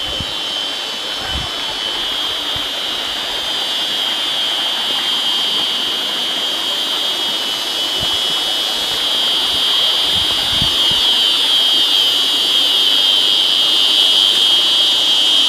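Loud, steady, high-pitched buzzing chorus of cicadas, growing a little louder toward the end.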